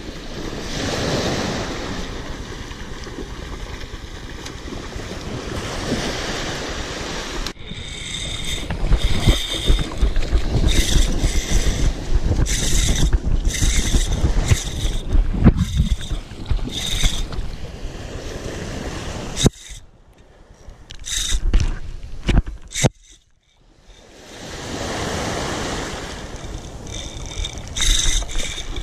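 Beach surf washing around the legs of a wading angler, with wind on the microphone. From about eight seconds in come louder irregular knocks and rustling as the camera moves close to the reel and the water, cutting out briefly twice in the second half.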